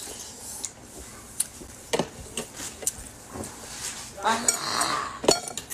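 Cutlery clinking against a bowl of meatball soup during eating: a handful of separate light clinks, scattered irregularly.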